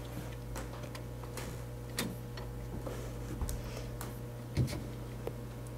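Foam swab wiping the wiper blade in the cleaning station of an Epson 7880 printer: a handful of faint, irregular clicks and taps against the plastic parts, over a steady low hum.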